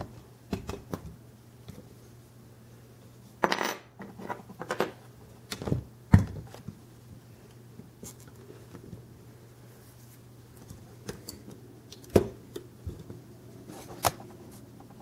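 Diecast scale models being handled on a tabletop: scattered clicks and light knocks of metal and plastic as a model concrete pump truck is set down and positioned, the sharpest about six and twelve seconds in, over a faint steady hum.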